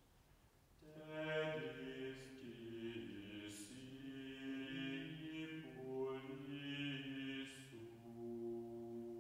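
Men's voices chanting plainsong in slow, held notes, starting about a second in after a short near-silence.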